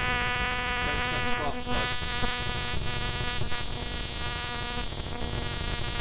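Spark plug arcing continuously, powered by a 400,000-volt high-voltage generator: a loud, steady electrical buzz.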